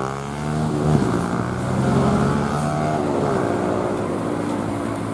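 Bus engine revving, its pitch rising and then dropping suddenly about a second in, then running on steadily.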